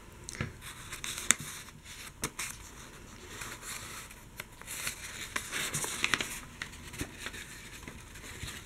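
Faint rustling of paper book pages being handled, with scattered small clicks and taps.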